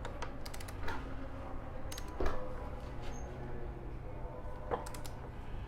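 Scattered light metallic clicks and knocks from hand tools and bolts being handled and fitted on a motorcycle's front fork, the loudest a little over two seconds in, over a steady low hum.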